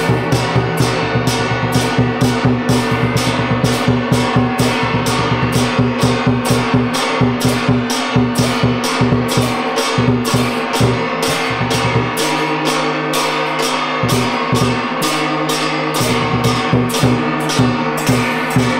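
Vietnamese trống chiêng drum-and-gong ensemble playing: several hand-held gongs struck with sticks in a fast, even beat of about two to three strokes a second, ringing over a large barrel drum. The drum drops out for about two seconds around twelve seconds in while the gongs keep going.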